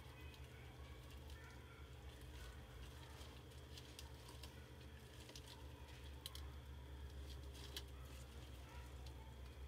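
Near quiet room tone: a steady low hum with a few faint, sharp clicks scattered through it.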